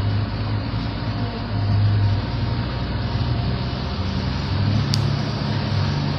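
A 4x4's engine running steadily at low trail speed, heard from inside the cab. Its note rises a little about four seconds in. A single sharp click comes about five seconds in.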